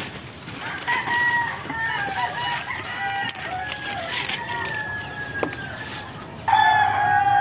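Roosters crowing in long, drawn-out calls, followed near the end by a louder call.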